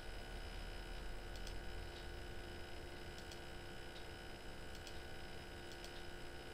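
A few faint computer-mouse clicks over a steady low electrical hum in a small room.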